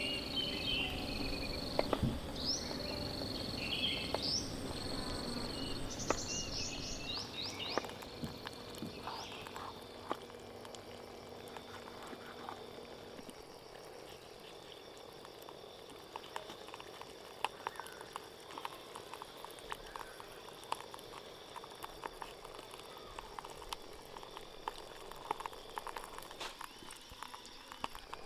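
Campfire crackling faintly, with scattered small pops and clicks over a soft hiss. Birds chirp during the first few seconds.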